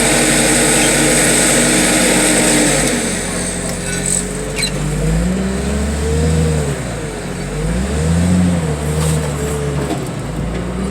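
A large engine running steadily, then from about three seconds in revving up and down again and again, its pitch rising and falling.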